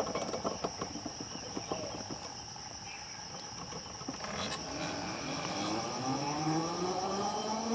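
Homemade electric bike's 48 V 1000 W BLDC motor driving the rear wheel through a car-gearbox crown and pinion: irregular clicking and rattling at first, then a whine that rises steadily in pitch and grows louder as the bike speeds up and pulls away.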